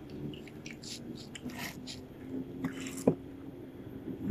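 Close-miked eating: soft wet chewing and fingers tearing at crispy fried fish, with scattered small clicks and scrapes. A single sharp knock about three seconds in is the loudest sound.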